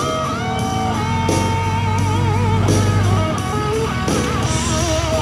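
Background music led by guitar, with bent, wavering notes over a steady low bass.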